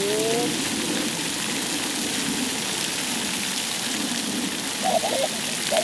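Splash-pad fountain jets spraying up and pattering back onto wet concrete, a steady rain-like hiss.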